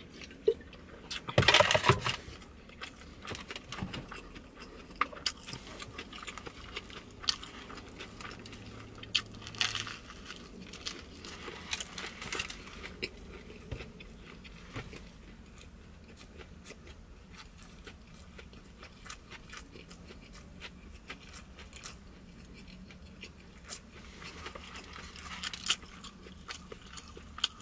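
Close-up mouth sounds of biting and chewing a crusty bánh mì baguette sandwich: scattered crunches and wet clicks, loudest about two seconds in.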